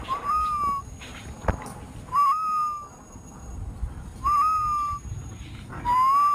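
A clear whistled call, each note rising slightly and then holding, repeated evenly about every two seconds, four times. A single sharp click about a second and a half in.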